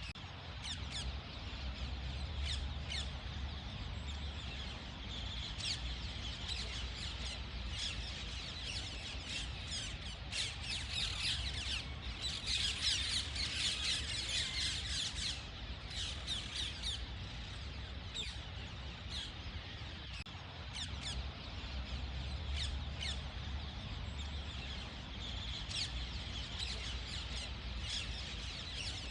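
Ring-necked parakeet calling: a long run of quick, sharp chirps and squawks, densest about halfway through, over a low steady hum.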